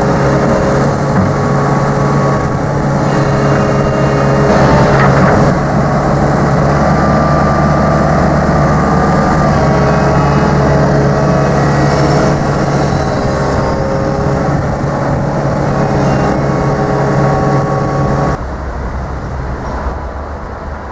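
Tracked hydraulic excavator's diesel engine running under work, with steady tones that shift in pitch now and then as the arm and bucket move. There is a brief louder noise about five seconds in, and near the end it gives way suddenly to a quieter background.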